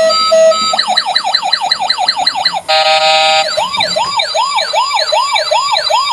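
Toy ambulance's electronic siren switching through patterns: steady pulsed beeps, then just under a second in a fast falling yelp, a short steady horn-like blast near the middle, then slower rising-and-falling sweeps, about two or three a second.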